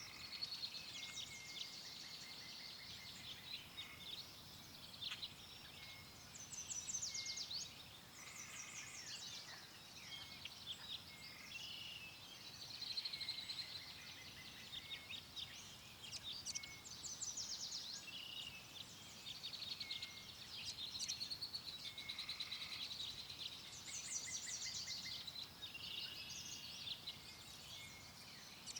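Several songbirds singing and chirping together, with overlapping high twitters and rapid trills.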